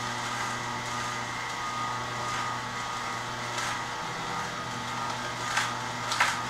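Horizontal auger juicer's electric motor running with a steady hum while poor man's pepper stems are fed in, with a couple of sharp cracks of stems being crushed near the end.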